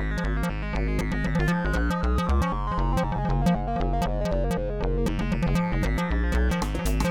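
Background music: a synthesizer and keyboard melody over a steady beat, with a falling run of notes in the middle.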